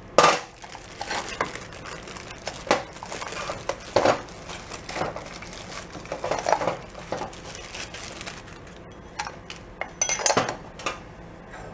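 Plastic bag crinkling and irregular metal clinks as a steel drive-clutch pulley is unwrapped from its bag and handled.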